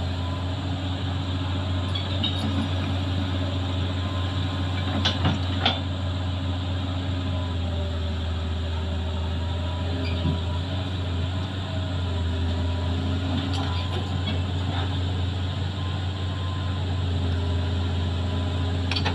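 Hitachi crawler excavator's diesel engine running steadily under load as the machine climbs onto a truck trailer. There are a couple of sharp knocks about five seconds in.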